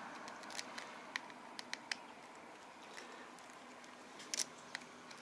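Faint scattered clicks and light scrapes from hands handling and working at the edge of a homemade sanding disc, with a short, louder cluster of clicks a little after four seconds in.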